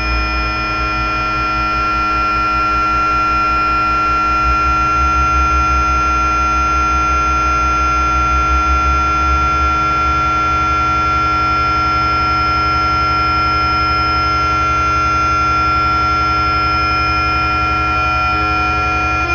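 DIY synthesizer drone with delay and reverb: several steady high tones held over a low, rapidly pulsing buzz. The pulsing speeds up about halfway through.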